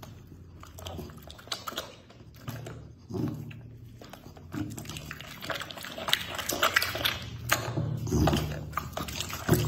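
A hand in a disposable glove handling and laying out raw meat on a plate: wet, sticky squelches and small clicks, getting busier about halfway through.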